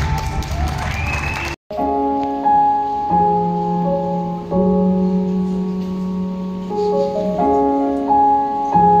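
Stage performance music played over a hall's sound system. Dense dramatic music breaks off about a second and a half in, then slow held keyboard chords follow, changing every second or so.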